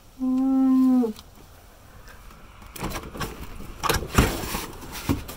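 A brief hummed voice sound in the first second. From about three seconds in come scattered clicks and knocks as the retractable cargo cover of a Toyota Camry station wagon is unhooked and handled in the cargo area.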